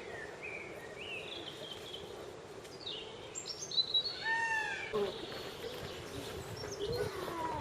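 Several birds calling: a run of short chirps and whistles, with a louder arched call about four seconds in, over a faint steady background hum.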